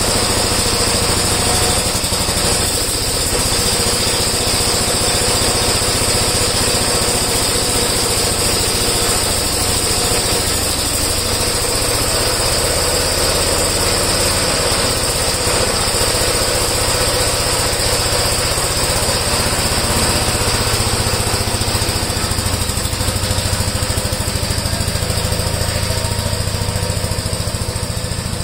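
Gravely walk-behind plow tractor's engine running steadily, warming up after a cold start in freezing weather, with the choke already off.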